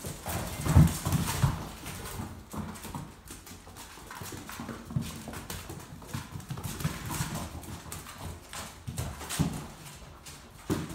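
A litter of Dogo Argentino puppies scrambling and play-wrestling on a hard vinyl floor: claws clicking and paws scuffling in an irregular patter of knocks. A louder cluster of thumps comes about a second in.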